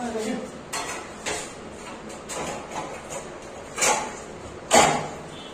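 Metal clanks and knocks from an aluminium frame being handled and set into a wall opening: about six irregular knocks, the loudest near the end.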